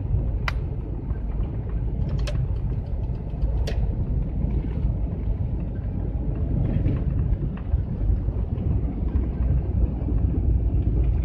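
GAZelle van driving along a highway: steady low engine and road rumble heard from inside the cab, with a few sharp clicks in the first few seconds.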